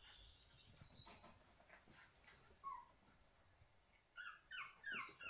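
Biewer-Chihuahua cross puppy whimpering: a run of short, high-pitched cries, each falling in pitch, about three a second, starting about four seconds in after a single faint squeak.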